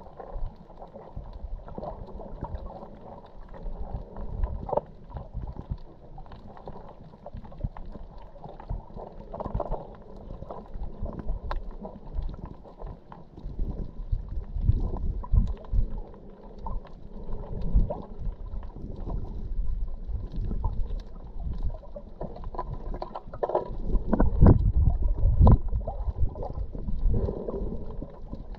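Muffled water sloshing and bumping heard underwater, with irregular low thumps, growing louder near the end.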